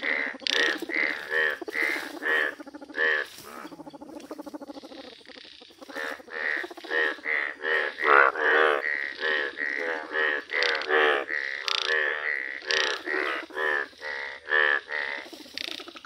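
Indian bullfrogs croaking, pulsed calls repeating about twice a second, with a brief lull about four to six seconds in.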